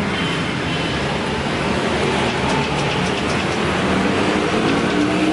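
Steady street traffic noise. Near the end a passing motor vehicle's engine note rises as it accelerates.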